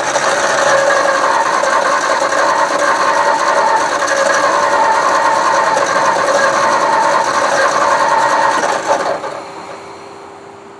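The starter motor of a 1960 Edsel Ranger cranks the engine steadily for about nine seconds without it catching, then stops. The engine is starved of fuel: the fuel pump runs but delivers none.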